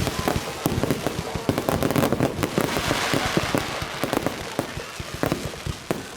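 Fireworks going off in a dense barrage: rapid, overlapping bangs and crackles that swell to a peak about halfway through.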